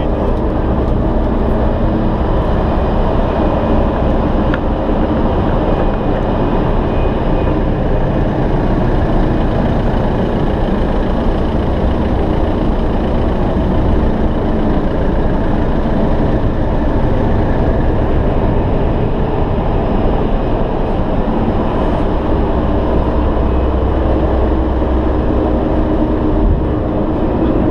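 A car ferry's diesel engines running with a steady, unbroken low drone, heard from the vehicle deck.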